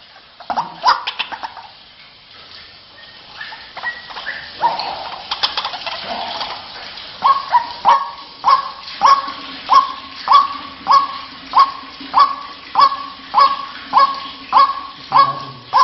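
White-breasted waterhen (ruak-ruak) calling: scattered calls at first, then from about seven seconds in the same note repeated steadily, roughly three calls every two seconds.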